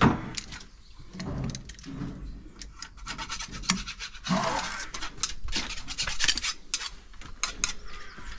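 Hand scraping and rubbing on slurry tanker vacuum pump vanes as they are cleaned of stuck-on deposits, with many short scrapes and clicks and a longer stretch of rubbing midway.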